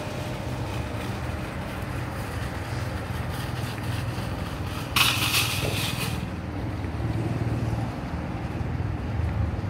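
Outdoor parking-lot noise: a steady low rumble with a hiss over it, and a brief louder hissing burst about five seconds in.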